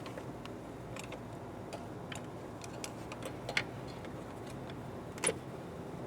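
Scattered light metallic clicks and clinks of engine parts and tools being handled, the two loudest about three and a half and five seconds in, over a steady low hum.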